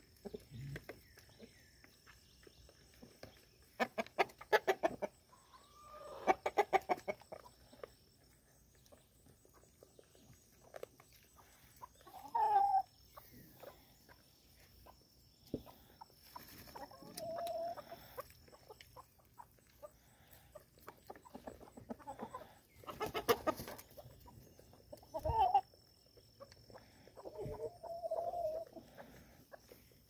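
Chickens clucking now and then in short single calls, mostly in the second half. Two short bursts of rapid clicking or tapping come in between.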